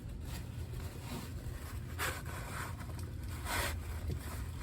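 A couple of short scraping, rubbing sounds, about two and three and a half seconds in, over a steady low rumble.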